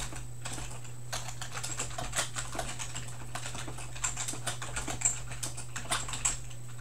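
Typing on a computer keyboard: a quick, irregular run of keystrokes as a chat message is typed.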